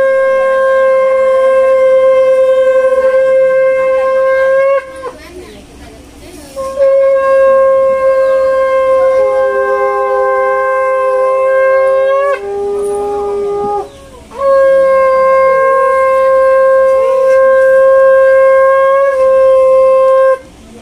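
Conch shells (shankha) blown in three long, steady blasts of about five seconds each, each note sagging in pitch as it ends; during the second blast a second conch joins at a lower pitch and holds on briefly after the first stops. Conch blowing at a Hindu wedding marks the close of the rites.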